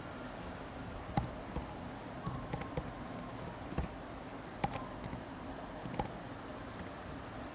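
About half a dozen light, separate clicks scattered over a steady, faint background hiss.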